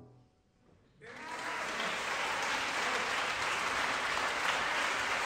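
Audience applause breaking out about a second after the last chord of a solo piano piece dies away, quickly building to a steady level.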